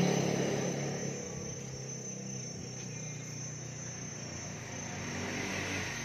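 Insects chirring steadily in one thin, high-pitched, unbroken tone, with a low hum in the first second that fades away.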